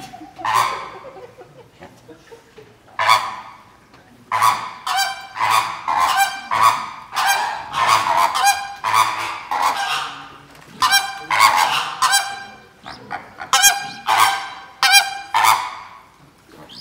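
Birds honking loudly and repeatedly: one call at the start, then after a lull of about two seconds a dense run of short, harsh honks, several a second, that dies away near the end.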